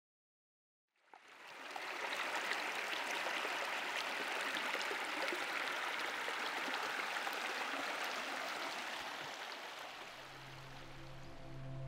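Shallow river running over stones: a steady rush of water that fades in after about a second of silence. Near the end the water eases down and a steady drone of several held notes comes in.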